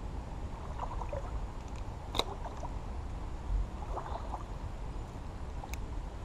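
Steady noise of a flowing creek with a low rumble beneath it, broken by a sharp click about two seconds in and a fainter one near the end.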